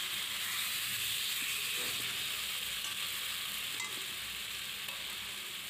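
Marinated chicken pieces sizzling in hot oil with onion–tomato masala in a metal kadai, stirred with a spatula: a steady frying hiss with a few light scrapes, easing off slightly toward the end.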